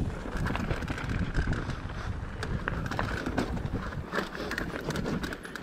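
Mountain bike riding down a rough dirt trail: a steady rumble of tyres on the ground under frequent clicks and rattles from the bike.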